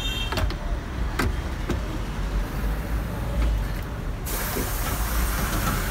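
Engine idling with a steady low rumble, with a few light clicks in the first two seconds. A little over four seconds in, a steady hiss comes in over it.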